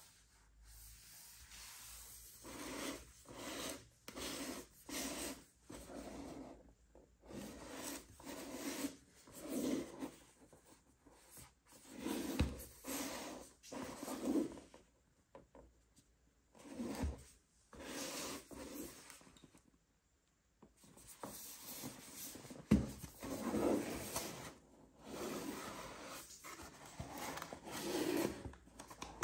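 White-gloved hands rubbing, scraping and tapping a cardboard box in a series of short strokes with brief pauses, going silent twice, about halfway and about two-thirds through.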